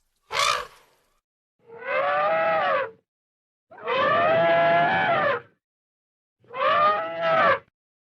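A short sharp burst, then three separate drawn-out vocal calls of about a second each, each rising and then falling in pitch, with dead silence between them.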